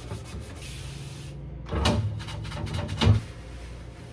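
A short stretch of scrubbing, then two knocks about a second apart, the second sharper: the refrigerator's shelves and drawers being handled during cleaning.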